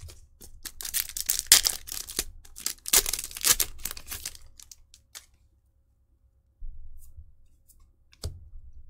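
A foil Weiss Schwarz booster-pack wrapper being torn open and crinkled by hand, a dense crackling for about four seconds. It then goes almost quiet, with a couple of light taps near the end as cards are handled.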